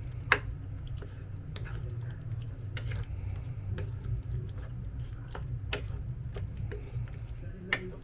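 A cooking utensil clinking and knocking against a pot of chicken afritada about eight times, sharpest about a third of a second in and near the end, over a steady low rumble.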